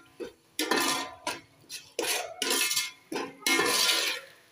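A perforated metal spoon scraping and stirring spiced tomato masala in an aluminium cooking pot, in about five strokes, with the pot ringing under the strokes.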